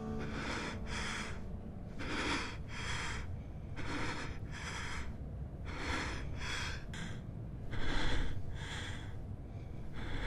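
Heavy, ragged breathing, the breaths coming in pairs about once a second, over a low steady rumble.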